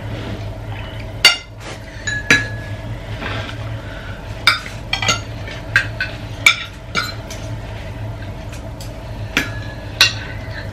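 Spoons and forks clinking and scraping against plates and bowls as people eat, with sharp clinks at irregular intervals about a second apart.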